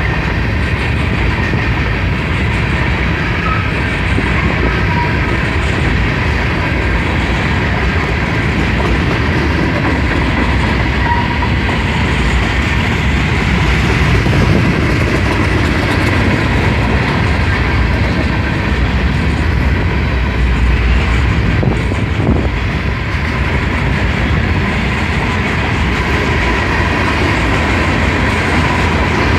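Long freight train's cars rolling past, a steady loud rumble and clatter of steel wheels on the rails.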